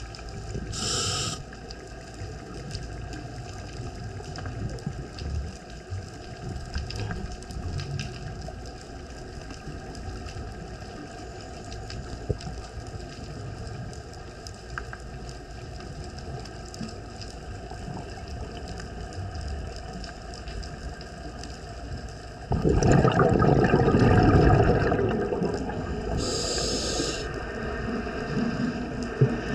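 Scuba diver breathing on a regulator underwater: a short hiss of an inhale about a second in and again near the end. From about two-thirds of the way through there is a loud rush of exhaled bubbles, over a faint steady underwater background.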